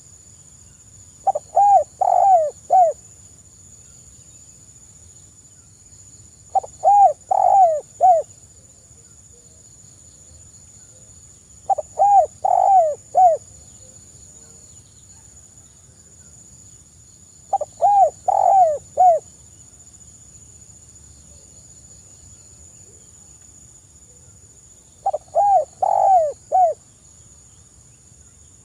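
Spotted dove (tekukur) cooing softly. It gives five short phrases of about four falling notes each, one every five to six seconds.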